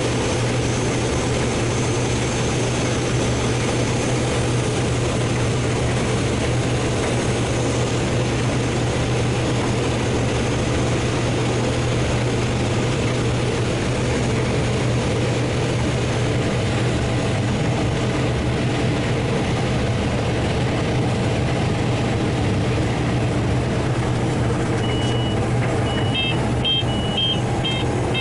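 Combine harvester running steadily in the field, a loud even machine drone with a strong low hum. Near the end a high electronic beep sounds, then turns into a rapid repeating beeping, a cab warning alarm.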